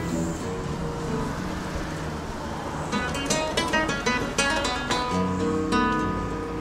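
Flamenco guitar played solo. Soft ringing notes come first, then from about three seconds in a run of sharp plucked notes and strums.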